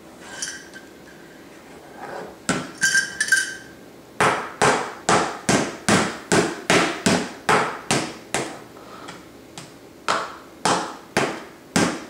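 A small child banging an object against a hard surface over and over, about three knocks a second, in two runs with a short break between. A few ringing clinks come before the banging.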